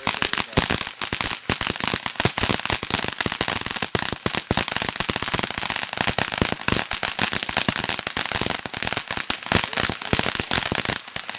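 Firework going off with a rapid, continuous run of crackling pops and bangs over a hiss.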